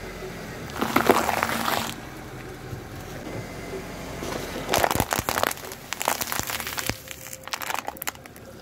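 Car tyre rolling onto green bell peppers and squashing them, loudest about a second in. Then a plastic cup crackling and crumpling under the tyre in several short bursts over the last few seconds.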